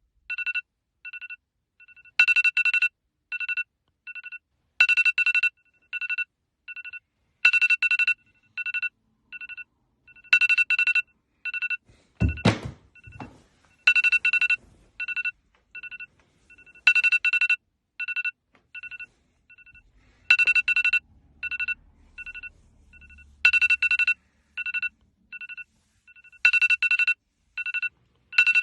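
Smartphone alarm tone sounding over and over: short electronic beeps on two steady pitches, with a louder, fuller burst about every three seconds and three or four quieter beeps between. A single thump breaks in about twelve seconds in.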